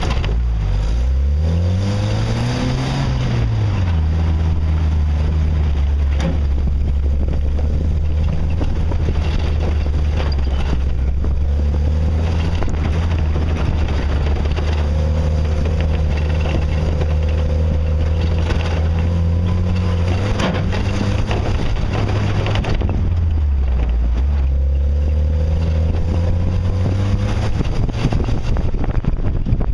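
Jeep's engine running as it is driven along the trail: it revs up and eases off in the first few seconds, then holds a steady speed, with a brief drop and pick-up a little past twenty seconds in.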